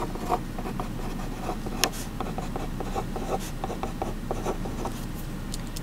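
A pen writing numbers on paper: a string of short, scratchy strokes with small taps as each figure is drawn.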